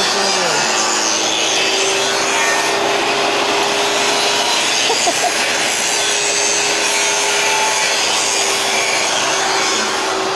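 Angle grinder grinding steel on a tractor wheel rim, running steadily with a constant motor tone under the grinding noise. The rim's loosened bolt area has been re-welded and is being ground down.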